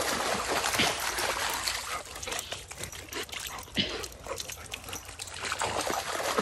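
Shallow creek water rushing over rocks, with a dog splashing through it; the splashing is heavier in the first two seconds and again near the end.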